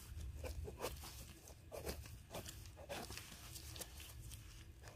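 Faint scattered rustles and crackles of movement through forest litter, over a low steady rumble of wind or handling on the microphone.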